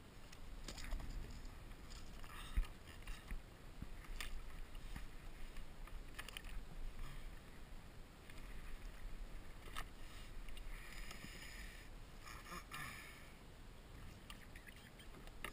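Water lapping against a plastic kayak's hull, with low wind rumble on the microphone and a few sharp knocks and clicks, the loudest about two and a half seconds in.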